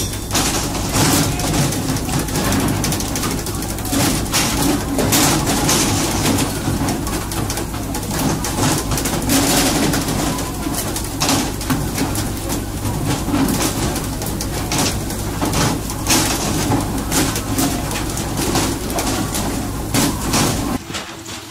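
Fishing boat's engine running steadily under rushing spray, with many sharp knocks and slaps as tuna are jerked out of the water on poles and land on the deck. The sound drops away near the end.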